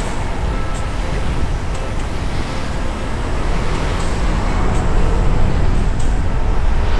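Motorcycle riding along the road: steady wind noise on the microphone with engine and road noise underneath, getting a little louder near the end.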